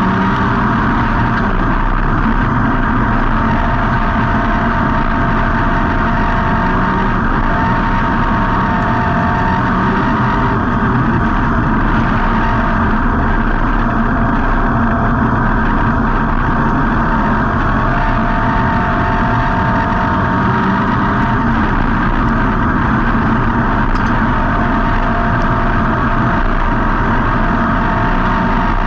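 Street stock race car's V8 engine heard on board, running hard throughout. Its pitch rises and falls in slow repeating cycles, as it would going down the straights and into the turns lap after lap, over a steady haze of noise.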